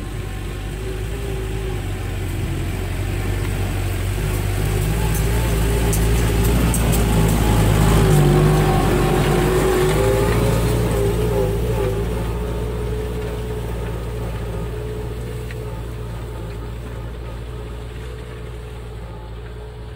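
Kubota M7060 tractor's four-cylinder diesel engine running at a steady working speed as the tractor drives past, growing louder to a peak about eight to ten seconds in and then fading away.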